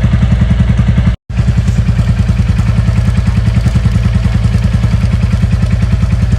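Royal Enfield Classic 350's single-cylinder engine idling with a steady, even pulse. The sound cuts out for an instant about a second in, then carries on unchanged.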